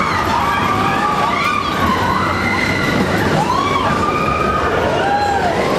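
Several overlapping siren-like wails that rise and fall in pitch, over a steady dense rumble of noise.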